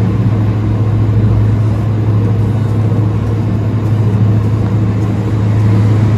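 A loud, steady low hum with a rumbling undertone, unchanging throughout, like a motor or fan running.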